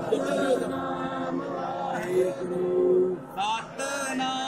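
A man singing a devotional chant, with long held notes that bend up and down.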